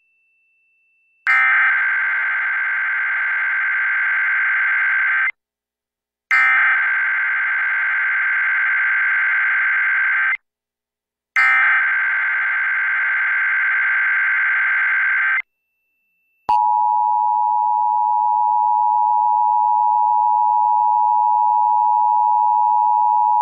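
Emergency Alert System broadcast tones: three SAME header data bursts, each a harsh digital screech of about four seconds with a second of silence between them. About two-thirds of the way in they are followed by the steady two-tone EAS attention signal (853 and 960 Hz).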